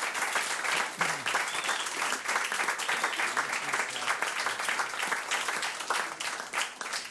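Audience applauding, a dense patter of many hands clapping that starts to thin out near the end.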